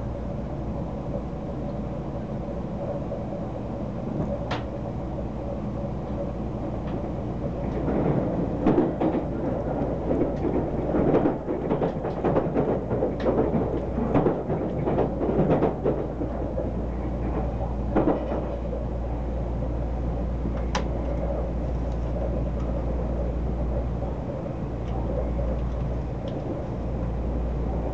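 Odakyu Line train running at speed, heard inside the car: a steady wheel-and-track rumble, with a stretch of loud irregular clattering and knocks for about eight seconds in the middle as the wheels run over points, and a few single knocks before and after.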